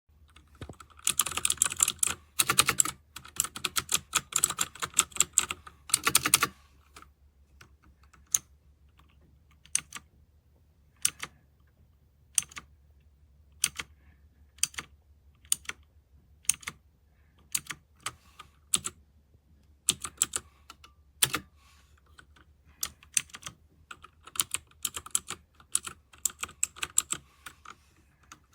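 Typing on a MageGee 75% mechanical keyboard with red switches: a fast run of keystrokes for about five seconds, then single key presses about one a second, then a few quick bursts near the end.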